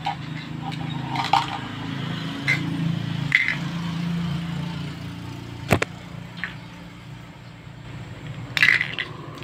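Plastic toy food and dishes knocking and clattering as they are handled, a handful of separate sharp clicks and knocks, the loudest about halfway through and near the end. A low steady hum sits underneath in the first half.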